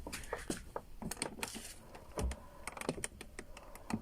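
Lada Vesta car door being worked back and forth after lubrication: a run of irregular small clicks and ticks from the door mechanism, with a low thump about two seconds in. It no longer creaks, though some click remains in the mechanism.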